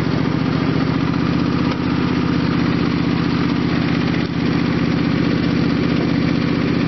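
Lawn tractor's engine running steadily at a constant speed as the tractor drives in a high gear.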